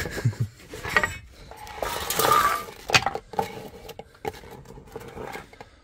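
Clicking, knocking and clattering of hand tools and metal parts being handled, with a short hiss-like burst about two seconds in.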